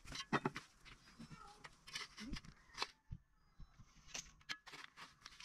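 Small shovel scraping and striking dry, stony soil in irregular strokes, with a brief lull about three seconds in.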